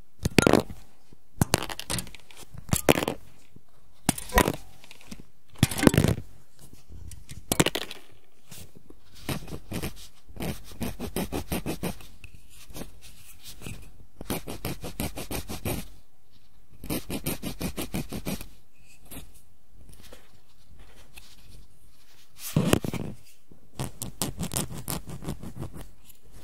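Hobby sprue cutters snipping grey plastic miniature parts off the sprue: several sharp separate snips. Then a small file rasping quickly back and forth over a cut plastic part in runs of rapid strokes, with one more snip near the end.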